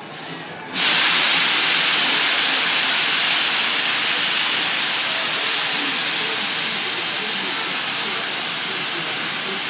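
A loud, steady hiss that starts suddenly under a second in and fades only slightly.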